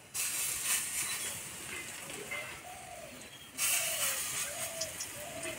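Lumps of spinach and gram-flour batter dropped into hot mustard oil in a kadai, frying with a sharp sizzle that flares up right at the start and again about three and a half seconds in, then settles.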